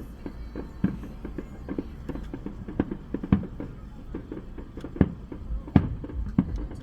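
Fireworks going off in an irregular string of sharp bangs and pops: several loud reports among many smaller ones.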